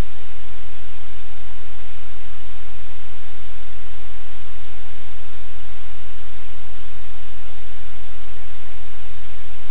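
Loud, steady static hiss with a low electrical hum underneath, a noisy audio feed with no room sounds standing out.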